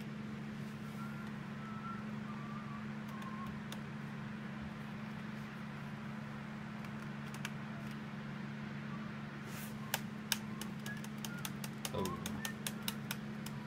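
Key and touchpad-button clicks on a Dell Latitude D520 laptop: a few scattered clicks at first, then a quick run of clicks in the last few seconds. A steady low hum runs underneath.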